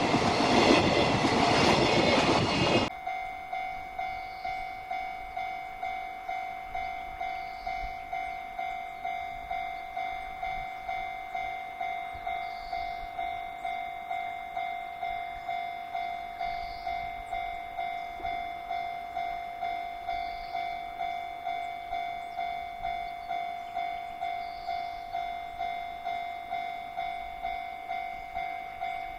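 A freight train passing close by, loud, its noise stopping abruptly about three seconds in. Then a level crossing's electronic warning bell rings on and on, one steady tone pulsing about twice a second.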